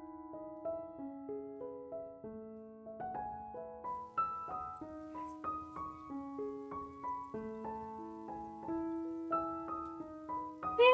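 Background piano music, a gentle melody of struck notes.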